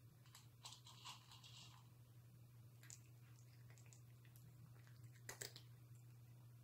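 A cat eating dry kibble: faint, irregular crunching in short bursts, loudest a little past five seconds in.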